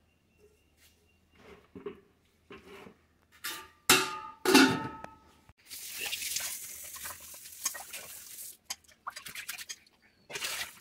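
Steel bowls clanking against each other and the stainless steel sink, two knocks about four seconds in ringing out briefly, then tap water running and splashing over a steel bowl being scrubbed with a sponge for about three seconds, followed by a few more quick clatters.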